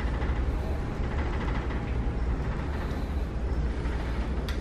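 Steady low rumble and hiss of background noise inside a large store.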